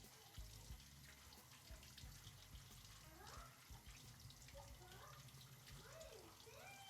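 Near silence: faint room tone, with a few faint rising-and-falling calls in the second half.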